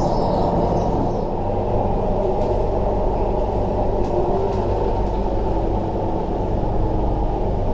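Steady rumble of a Tuen Ma Line metro train heard from inside the carriage as it runs through the tunnel, with a few faint steady tones from the train coming in near the end.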